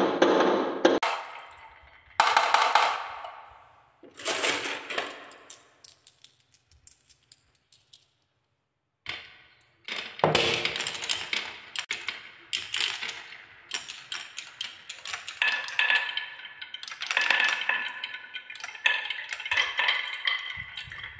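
Marbles rolling down wooden marble-run tracks and clattering and clinking as they knock together and drop into a plastic toy truck bed, in a series of separate bursts that fade out. After a brief break about eight seconds in, a dense run of quick wooden knocks and glassy clinks follows, with ringing clinks near the end.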